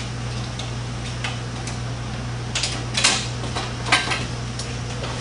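Aluminum stretcher bars clinking and knocking together in a few irregular light strikes as the frame's corners are joined on their L brackets, the loudest about three to four seconds in, over a steady low hum.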